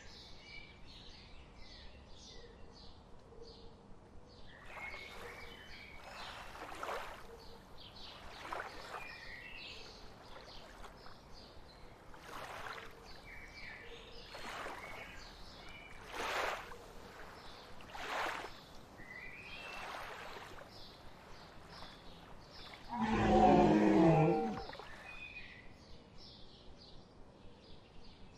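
Forest ambience with small birds chirping in quick repeated notes, broken by several brief rushing noises. About 23 seconds in comes one loud, low, wavering sound lasting about two seconds.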